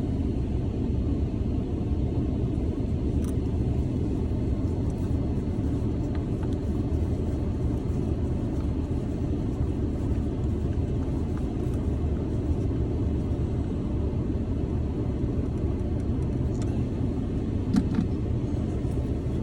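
Dodge Ram's cabin heater blower fan running steadily on high, a dense low rush, with a few faint small clicks from work at the shifter.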